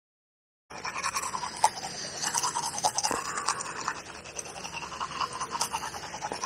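A toothbrush scrubbing teeth in quick, irregular, scratchy strokes, starting just under a second in.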